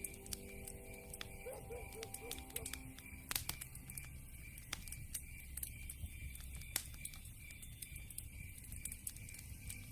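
Wood fire crackling: irregular sharp pops and snaps of burning logs over a low, steady rumble of flames. Soft music notes sound faintly in the first few seconds.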